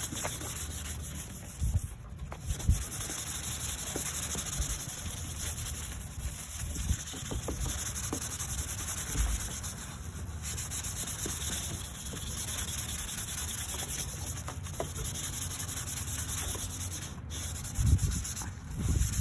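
Hand wet-sanding an oxidized plastic headlight lens with a lubricated sandpaper square: a steady rubbing rasp of repeated strokes that stops briefly a few times. This is the abrasive stage of a headlight restoration, taking off the foggy oxidation layer.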